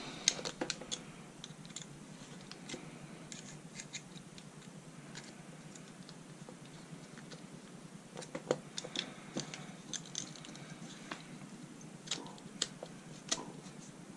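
Light clicks and taps of handguard parts being handled and fitted together, the halves of a two-piece handguard knocking against the barrel sleeve and front sight block as they are lined up. The clicks come in scattered clusters near the start and again in the second half, with a quieter stretch between.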